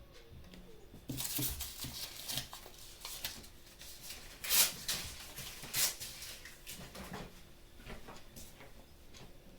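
Kitchen handling sounds: scattered short knocks and clinks of utensils or containers, with two louder sharp clatters near the middle.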